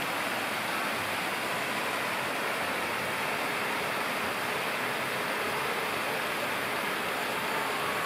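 A fountain's many water jets splash steadily into its basin, a continuous even rushing of water.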